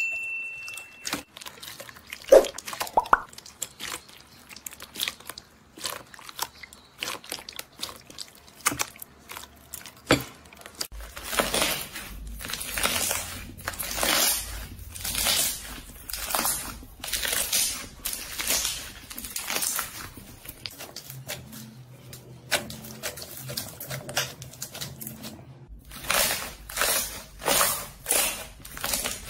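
Hands pressing and kneading slime. At first there are scattered small crackles and pops, then a steady run of squishy, crackling presses, a little more than one a second, a lull, and more presses near the end.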